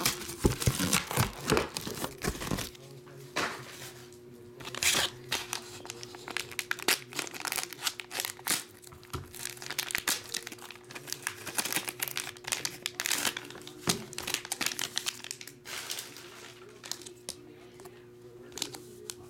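Foil trading-card pack wrapper crinkling and tearing as it is handled and opened, in a run of irregular crackles that come thickest near the start and twice more in the middle.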